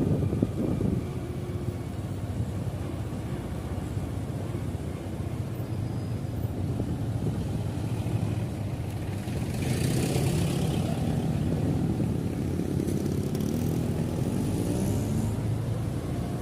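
Heavy diesel engine running steadily with a low hum, rising in pitch over the last few seconds. A burst of hiss comes about ten seconds in.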